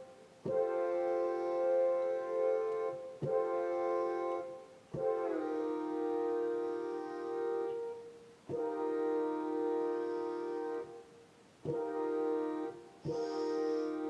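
Train horn sounding a chord of several notes in about six separate blasts, each one to three seconds long, with short gaps between them.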